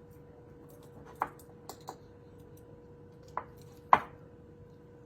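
A few short clinks and knocks of dishes and utensils, about five in all, the loudest about four seconds in, over a faint steady hum.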